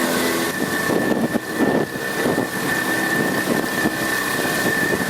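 Water rushing and splashing around a fast-moving sea kayak, in irregular surges, over a steady mechanical whine.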